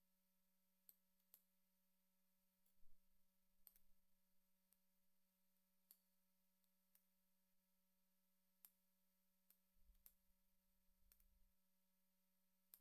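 Near silence: a faint steady electrical hum, with a dozen or so faint clicks and a few brief low rumbles.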